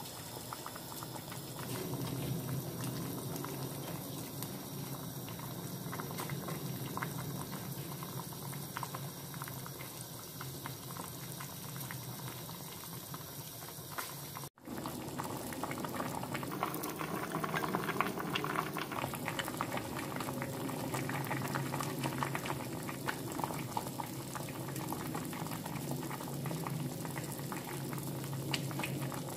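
Soft tofu stew (sundubu-jjigae) boiling in a stainless steel pot: a steady bubbling with many small pops. The sound cuts out for an instant about halfway through, then the bubbling carries on.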